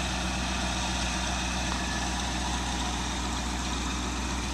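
Ford F750 grain truck's engine idling steadily with an even low hum.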